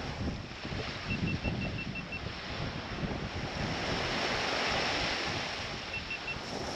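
Surf washing onto a beach with wind gusting on the microphone. A quick run of faint, short high beeps sounds about a second in, and a shorter run near the end.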